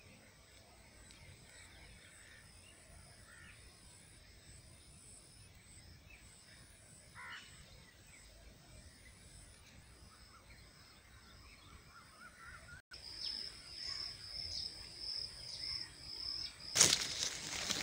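Faint outdoor ambience in a citrus orchard, with a single distant bird call about seven seconds in. After a brief break in the sound, a steady high-pitched tone with slight wavers comes in, and a loud rustling noise follows near the end.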